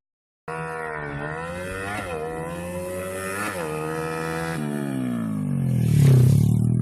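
Honda Grand motorcycle's single-cylinder four-stroke engine, bored out to 130cc, being revved: the pitch climbs and dips in a few blips, then falls back toward idle over the last two seconds.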